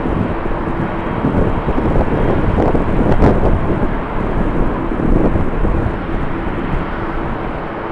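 Jet airliner engine noise, a steady rushing sound with a faint held tone, and uneven gusts of strong wind buffeting the microphone.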